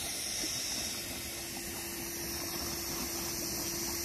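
Air from a pool-closing blower bubbling up out of the main drain and boiling at the pool's surface as the drain line is blown clear of water. A steady motor hum runs underneath.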